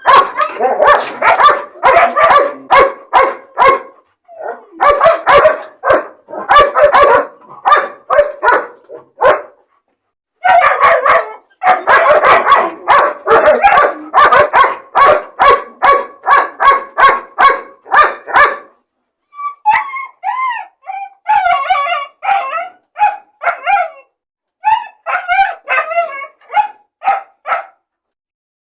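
Dogs barking in rapid runs of short barks, three bursts separated by brief pauses. About two-thirds of the way in, the barking gives way to sparser, higher yaps that bend up and down in pitch.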